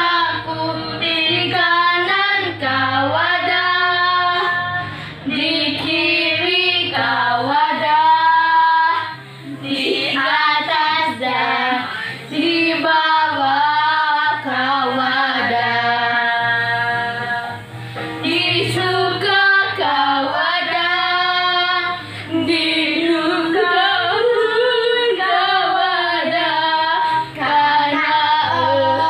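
Two children singing a Sunday school action song, one sung phrase after another with short breaks between lines.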